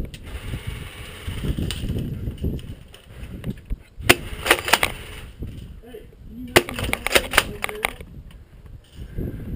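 Airsoft rifle firing two quick strings of shots, about four and about seven seconds in, each a rapid clatter of sharp snaps lasting roughly a second. Low rumble of wind and handling noise on the microphone in between.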